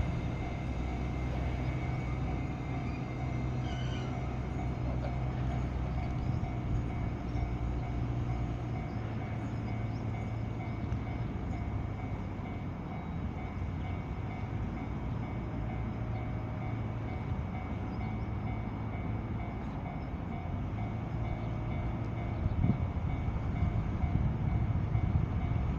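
E653 series electric train running slowly past at reduced speed, a steady hum of motors and wheels on the rails that grows louder near the end.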